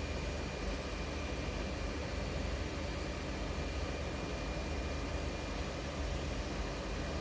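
Steady fan or blower noise from electronics rework equipment: an even whooshing hiss over a low hum, with a faint high whine held at one pitch.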